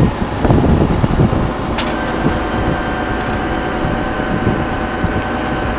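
A motor running steadily, a hum of several held tones that sets in with a click about two seconds in, with wind buffeting the microphone in the first second or so.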